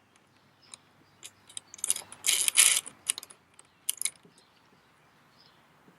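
Small stainless steel fastening hardware (flange washer, lock nut) clicking and clinking while being handled and fitted onto a screw. There are scattered clicks, with a louder burst of clattering about two to three seconds in.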